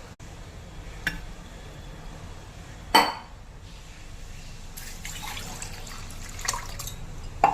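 Water being poured from a glass into a cooking pot, a steady splashing pour with a few short knocks, the loudest a sharp one about three seconds in.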